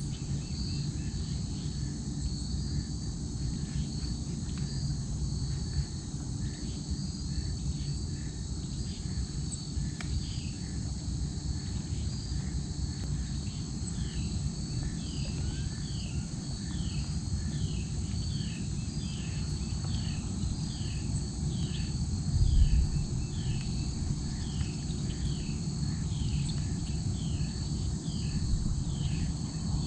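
Marsh evening ambience: insects chirring steadily in a fast pulsing trill, joined after a while by a repeated short falling chirp about once a second. A low rumble runs underneath, briefly louder about two-thirds of the way through.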